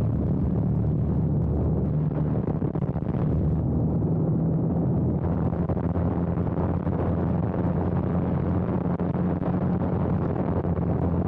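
A light biplane's piston engine and propeller running steadily, with airflow rushing over an outside-mounted camera during a spin. The rushing noise thins for a few seconds and picks up again about halfway through.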